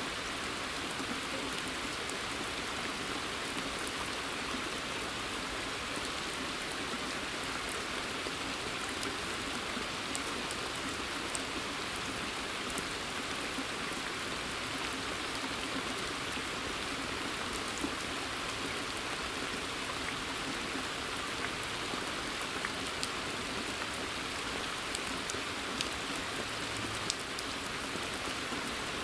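Steady rain falling in woodland and onto a pond's surface, an even hiss with scattered individual drops ticking close by.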